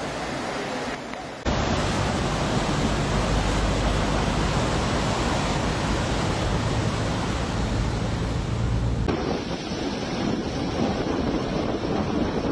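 Steady rushing noise of swollen floodwater and wind on the microphone, changing abruptly twice. In the middle stretch, heard from inside a car on a road with water streaming across it, a deep low rumble runs under the rush.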